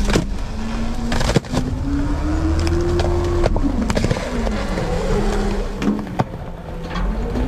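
Front-load garbage truck's engine revving up to drive the hydraulic packer while the load is compacted: the pitch climbs for a few seconds, drops back, holds and starts to climb again near the end. Several sharp metallic clanks come from the hopper body.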